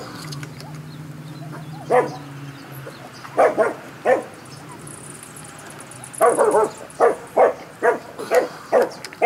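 A dog barking: a few single barks in the first half, then a quick run of barks, two or three a second, from about six seconds in.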